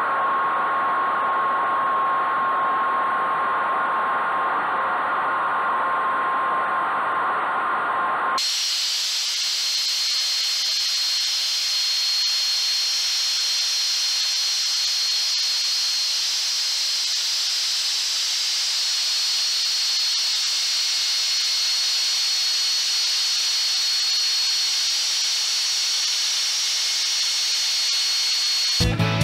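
Router spindle on a homemade CNC running with a V-bit cutting into wood: a steady high whine over a hiss of cutting. About eight seconds in the whole sound jumps to roughly four times the pitch, as the recording is played back at fourfold speed.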